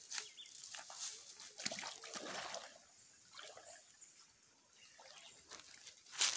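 Shallow stream water splashing and sloshing in irregular bursts as a person wades in and works his hands through it, with a louder splash near the end.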